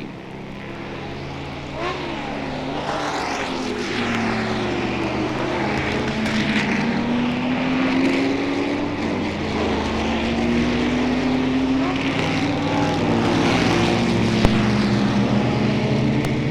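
Several racing car engines heard at a distance, overlapping in a continuous drone whose pitches glide slowly up and down as the cars pass and change speed, growing gradually louder. A single sharp click about fourteen seconds in.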